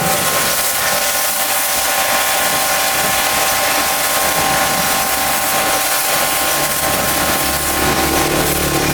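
Pressure washer jet spraying steadily, a loud even hiss over the whine of the washer's pump. A deeper low rumble joins in about two-thirds of the way through.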